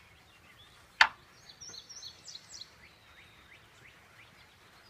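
A single sharp click about a second in, followed by small birds chirping in short, high calls over quiet outdoor background.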